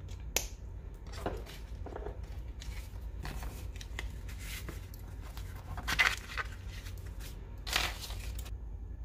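Paper and stationery being handled: a sharp tap, then scattered short rustles and scrapes. The loudest comes about six seconds in, and a longer one follows near the end.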